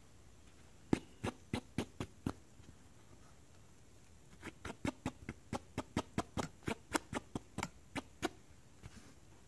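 Fingers tapping the stiff brim of a cotton baseball cap in quick sharp clicks, about four a second: a short run of about six taps, a pause, then a longer run of about fifteen.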